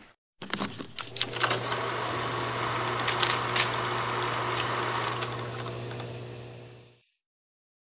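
Film projector running: a steady mechanical whir with a low hum and scattered clicks and crackle. It starts after a brief gap and fades out near the end.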